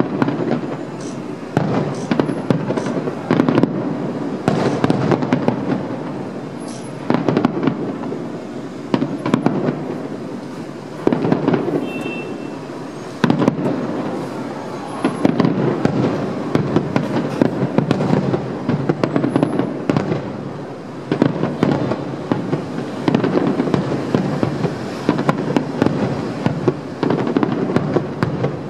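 Aerial fireworks shells bursting in rapid, overlapping succession: a continuous run of bangs and crackling that grows louder in clusters every few seconds.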